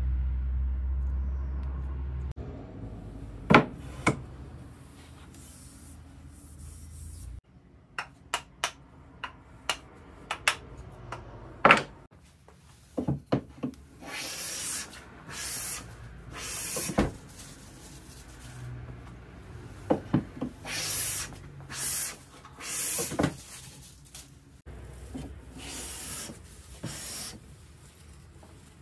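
Plane blade being sharpened on a drill-driven whetstone jig: a low motor hum at first, then scattered knocks and clicks of handling, then a run of short rasping strokes of steel scraping on stone.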